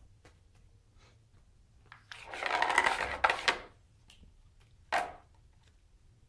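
A kitten pawing and scratching at a round plastic ball-track cat toy with a cardboard scratch pad: a rapid rasping clatter lasting about a second and a half, then a single sharp knock about five seconds in.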